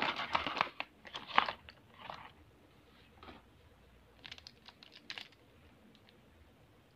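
Plastic fineliner pens being slid out of a cardboard box and handled, rustling and clicking against one another. The scraping is strongest in the first two seconds or so, and a few light clicks follow about four to five seconds in.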